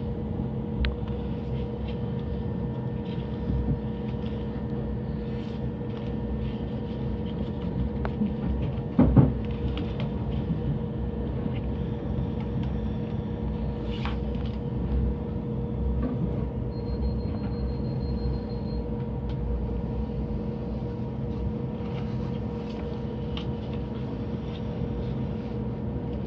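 Cabin sound of a Southern electric passenger train on the move: a steady low rumble with a constant hum, and one loud knock about nine seconds in.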